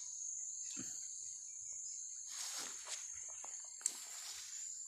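Steady, high-pitched chorus of insects, with a few faint rustles and one sharp click about four seconds in.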